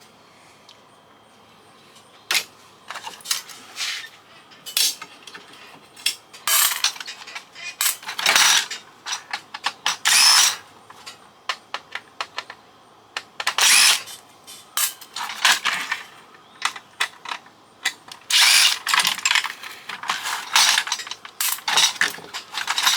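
Panasonic KX-FP101 fax machine being taken apart by hand: irregular clicks, scrapes and rattles of its plastic and metal parts, starting about two seconds in.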